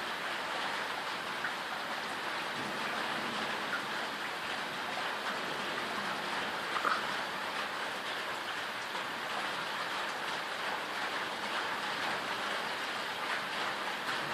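Steady rain falling during a thunderstorm, a constant hiss with individual drop impacts ticking through it.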